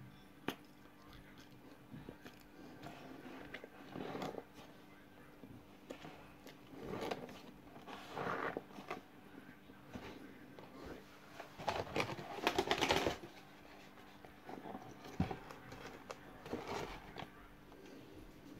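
Mouth sounds of someone eating dry cornflour through a straw: sucking the powder up and chewing it, in irregular bursts with a few sharp clicks, loudest about two-thirds of the way through.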